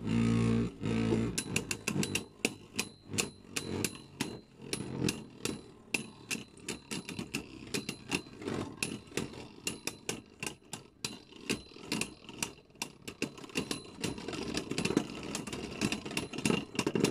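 Two Beyblade spinning tops in a clear plastic stadium. A steady whirr at first gives way, about a second in, to the tops clacking into each other again and again, several sharp knocks a second, with the hardest hits near the end.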